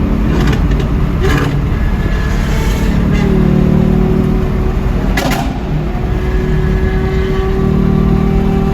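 Lamborghini Aventador SVJ's V12 on a Gintani tune running at a steady pitch, with several sharp exhaust pops and crackles, the strongest cluster about five seconds in.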